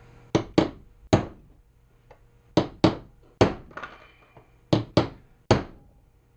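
Hammer blows peening the steering-head tube around a loose top bearing bushing, dimpling the metal so the bushing is held tight and cannot turn. About nine sharp metallic strikes come in three quick groups of three.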